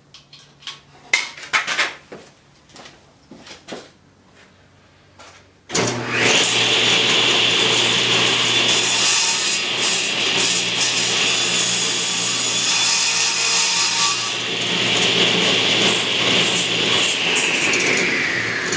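A few knocks and clicks of handling, then a table saw switches on suddenly about six seconds in and runs with a steady whine while a board on a crosscut sled is pushed through the blade. Near the end the saw is switched off and the whine falls in pitch as the blade spins down.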